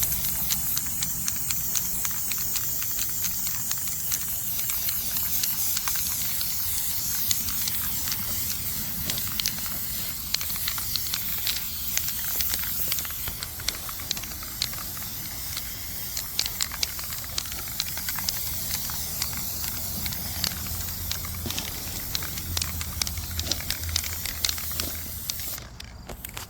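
Aerosol can of flat black spray paint spraying a second coat onto a brake rotor: a steady hiss with many light ticks, which drops away near the end.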